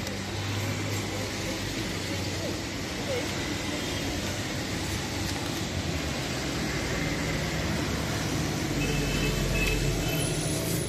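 Steady road traffic noise from the street: a continuous rushing hiss with a low hum underneath.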